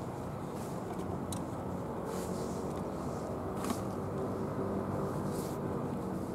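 Steady low background rumble of outdoor ambience, with a few faint brief high hisses.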